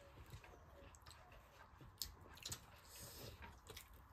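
Near silence with faint eating sounds: soft chewing, wet mouth clicks and fingers squishing rice and curry, with a few sharper clicks about two seconds in.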